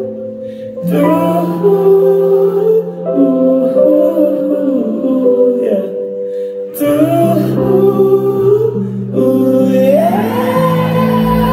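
Live pop song from the audience: a sung melody of long, gliding notes with no clear words, over electric guitar and a bass line that moves in steady steps. The sound drops back briefly just after the start and again about six and a half seconds in.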